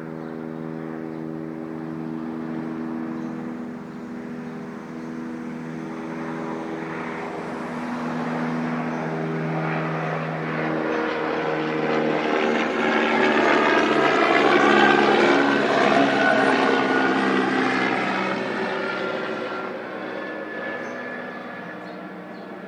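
Helicopter passing by: the rotor and engine drone grows louder to a peak about two-thirds of the way through, then fades as it moves away.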